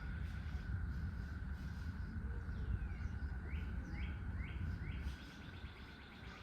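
A bird calling: four short rising chirps in a row, then a quick run of chirps. Behind it are a steady high hum and a low rumble that drops away about five seconds in.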